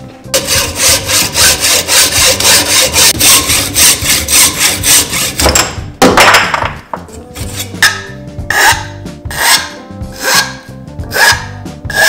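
A hand hacksaw cuts through a carbon tube held in a saw guide, with rapid, even strokes. About halfway through, the sawing gives way to slower single strokes, about one a second, as a file dresses the cut end.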